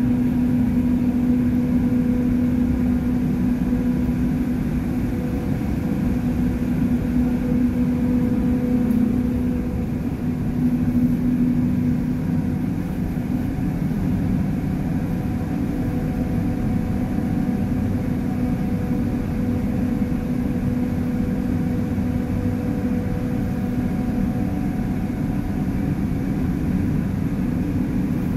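Large marine diesel machinery in a ship's engine room running steadily: a constant heavy drone with a steady hum, which eases slightly about halfway through.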